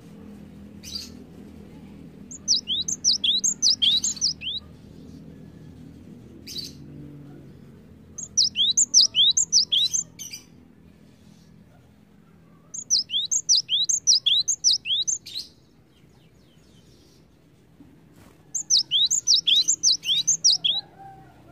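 Cinereous tit (gelatik batu) singing: four bursts of rapid, high, down-slurred notes, each burst about two seconds long and several seconds apart.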